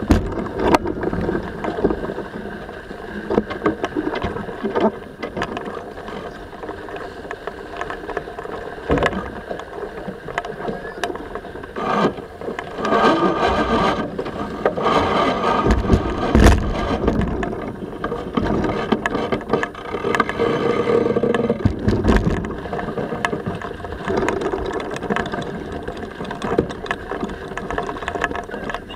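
Sailing yacht underway through a turn: wind and water rush past while the crew haul sheets and crank a winch, with irregular rattling and scraping of lines and deck hardware. The clatter is busiest about halfway through.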